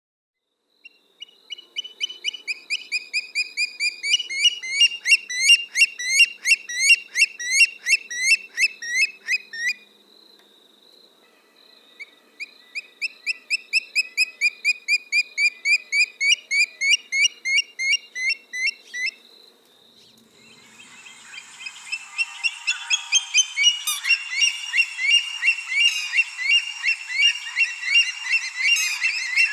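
Rainforest animal calls: long trains of rapid, repeated chirps at about four to five a second, breaking off twice. A little past two-thirds of the way in, a steady hiss comes in under the chirping.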